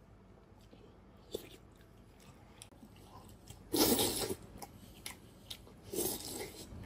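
Close-up mouth sounds of a person eating saucy braised beef: faint chewing and small wet clicks, then two loud wet bursts as bites are sucked in, about four and six seconds in.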